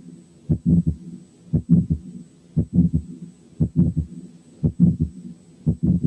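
Auscultation recording of heart sounds with a faint early diastolic murmur, the murmur of aortic regurgitation. The beats come about once a second.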